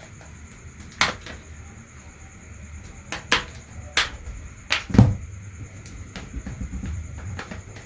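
A handful of sharp clicks and taps of small hard objects, about six in all, over low rumbling handling noise. The loudest is a knock about five seconds in.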